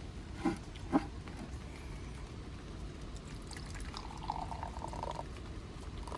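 Two light knocks, then liquid being poured into a container for about a second, a bit past the middle.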